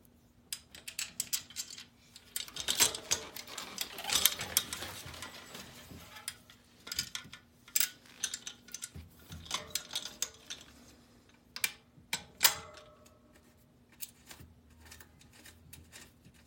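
Small metal clicks, clinks and rattles of a hex bolt, washers and an alloy bike rack strut being handled and fitted into the bicycle frame's mounting hole, in irregular clusters with a few sharper knocks, busiest about three to five seconds in.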